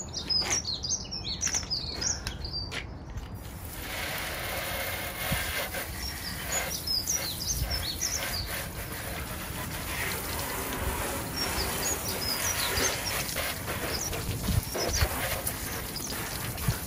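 Garden hose spraying water over a motorcycle to rinse off the cleaner: a steady hiss of spray that comes in about three and a half seconds in. Birds chirp throughout.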